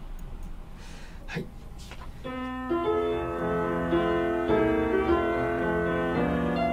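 A piano recording of a school song begins about two seconds in, after a couple of faint clicks, and plays on as a steady run of notes.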